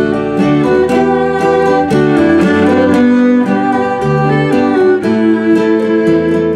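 Instrumental passage of a folk song played live: a violin playing the melody over strummed acoustic guitar and bass.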